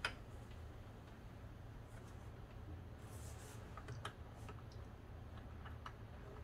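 Light scattered clicks and taps of car door parts being handled and fitted, with one sharper click at the start and a brief rustle about three seconds in, over a low steady hum.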